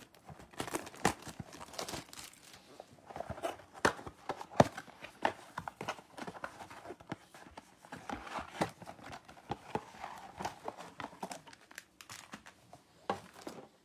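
A cardboard trading-card blaster box being opened and its foil card packs handled: a busy run of crinkling and rustling, with some tearing and short taps and clicks.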